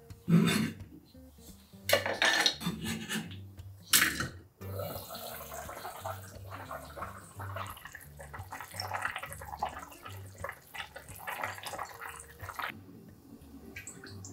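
Kitchenware clinking: three sharp clinks of dishes or utensils in the first four seconds. Then a spoon scoops broth out of a cast-iron pot into a glass bowl, with metal clinking against the pot and liquid splashing, stopping near the end.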